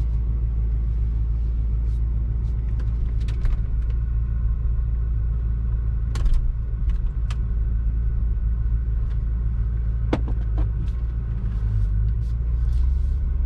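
Turbocharged BMW engine running steadily at low revs, heard as a low rumble from inside the cabin while the engine is still warming up from a cold start. A few light clicks sound about six and ten seconds in.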